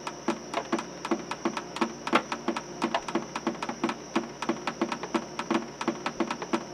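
Background music with a quick, even clicking beat, about five clicks a second.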